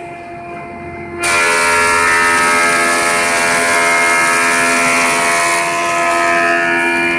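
Combined planer thicknesser running with its cutterhead spinning, then about a second in a board is fed in and the cutterhead starts planing it: a sudden, loud, steady cutting noise with a high whine that carries on.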